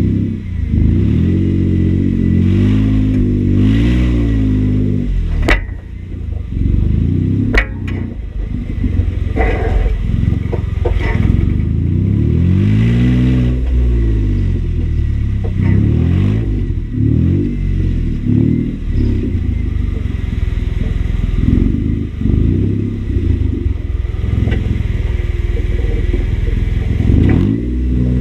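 Jeep engine revving up and down over and over as it crawls over rough terrain, with a couple of sharp knocks about five and seven seconds in.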